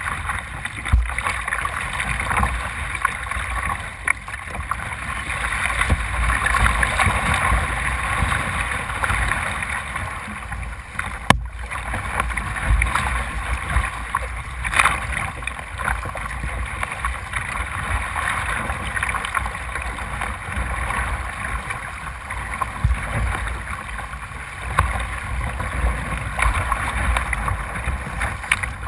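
Tidal whitewater rushing and splashing against a kayak's hull, heard close up from the bow, with a steady low rumble under the rush. A single sharp knock about eleven seconds in.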